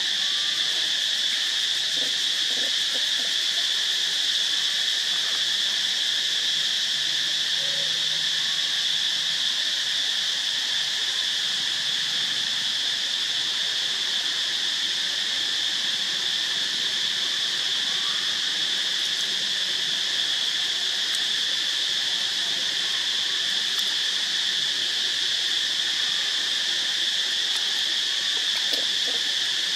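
Steady chorus of insects: a continuous high-pitched buzzing drone that never breaks or changes.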